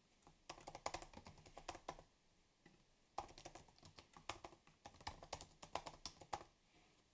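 Quiet typing on a computer keyboard: quick key clicks in two runs, a short one in the first couple of seconds and a longer one from about three seconds in, with a pause between.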